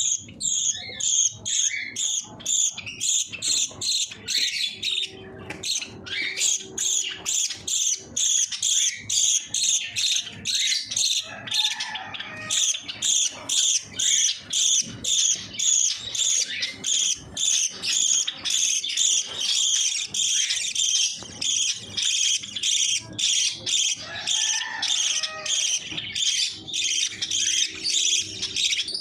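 Budgie chicks chirping in a fast, even run of high calls, about two a second without a break.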